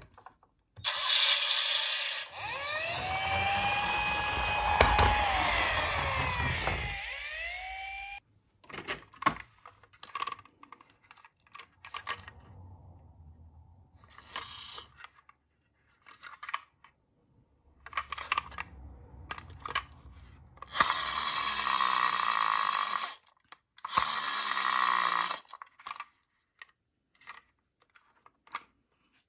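A toy police minicar being taken out of its cardboard box and plastic packaging: scattered clicks, scrapes and rustles. Near the start there is a loud stretch of several seconds with rising and falling tones over a low rumble, and near the end two loud rasping bursts of a couple of seconds each.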